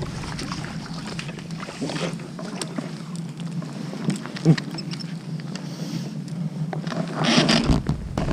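Steady low motor hum, with scattered small clicks and knocks and a brief rush of noise about seven seconds in.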